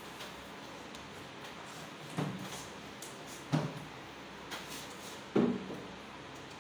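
Three sharp knocks about a second and a half to two seconds apart, with a fainter one between the last two, from work on PVC ceiling panels.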